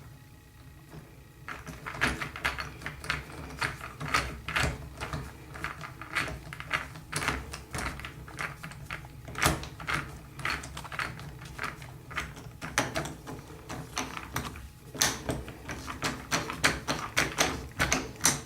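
Screwdriver driving the handle screw back into a Moen single-handle shower faucet, giving quick irregular metal clicks and taps that start about a second and a half in.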